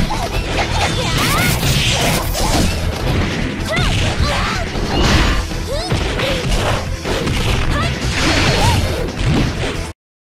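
Fight sound effects from a CG fighting-game cutscene: a dense run of hits, smashes and whooshes over music, with short cries that bend in pitch. It stops abruptly near the end.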